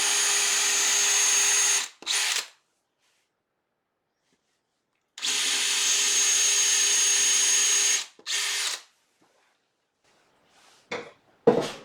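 Drill boring an 8 mm hole into a wet wood blank for a chuck's worm screw. The motor runs steadily with a thin whine for about two seconds, stops, then runs again for about three seconds, and each run ends with a short blip. Two sharp knocks come near the end.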